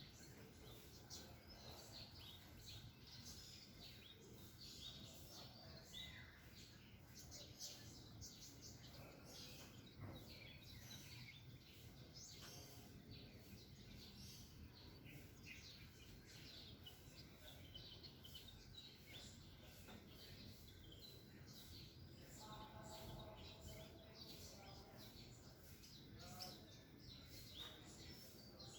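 Faint chirping of several small birds, with many short high calls overlapping throughout, over a low steady background rumble.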